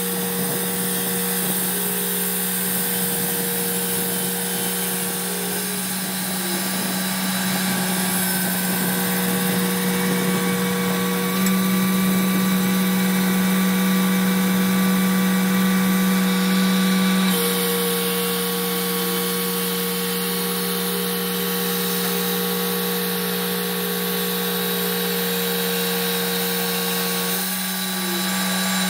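Clarke 350 XP portable band sawmill running with a steady mechanical drone; the pitch of its higher tones shifts a few times.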